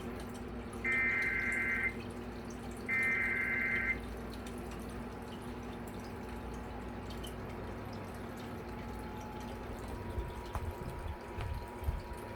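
Two bursts of Emergency Alert System SAME header data, the coded tones that open a flash flood warning alert, each about a second long and a second apart. A steady low hum follows.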